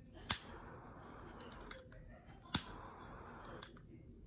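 Butane torch lighter's piezo igniter clicking sharply twice, about two seconds apart, each click followed by the faint hiss of the jet flame.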